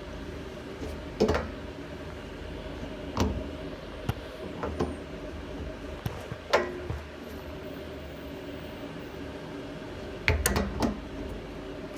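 Handling noise from working on plumbing fittings: scattered short knocks and clicks, several in quick succession about ten seconds in, over a steady low hum.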